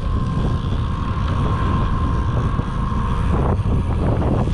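Boat motor running under wind buffeting on the microphone, with a steady whine that stops about three seconds in.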